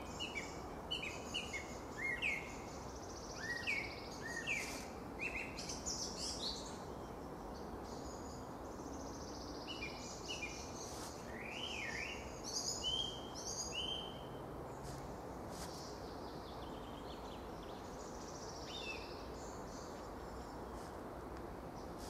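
Songbirds singing: many short, falling notes, busiest in the first half and thinning out after about fourteen seconds, over a steady low background hum.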